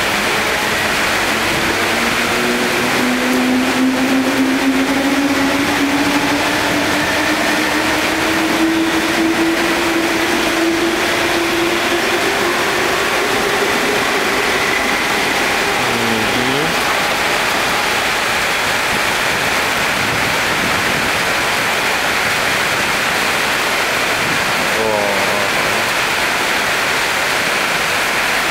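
Heavy rain pouring steadily while an MTR East Rail Line electric multiple-unit train passes on the next track. Its motors give a whine that rises slowly in pitch over the first half and then fades under the rain.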